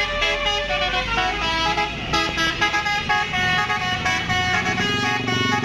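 Bus telolet horns playing a melody: several horn tones sound together and step from note to note every fraction of a second. From about three seconds in, a low pulsing engine drone runs underneath.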